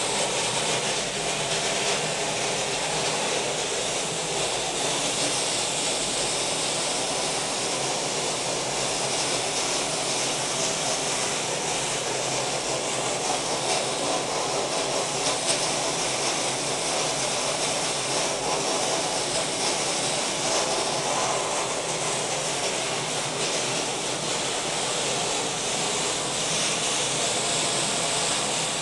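Plastic media blast nozzle running continuously: a steady hiss of compressed air and plastic grit striking a car's sheet-metal body panel, stripping the paint.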